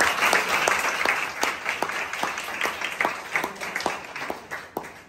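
A group of people applauding, dense clapping at first that thins out into scattered claps toward the end.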